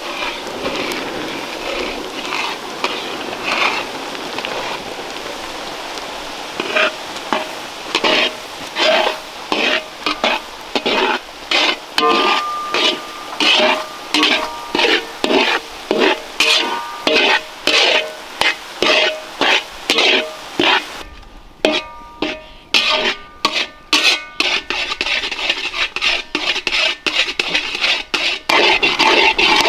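A spoon or spatula stirring and scraping in a metal cooking pan in regular strokes, about one or two a second, over a faint sizzle. The strokes come faster in the last few seconds.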